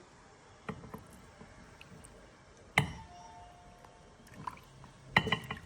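A few scattered clinks and knocks of a cup and metal coffee-maker parts being handled. There is a sharp knock about three seconds in that leaves a brief ringing tone, and a quick cluster of clinks near the end.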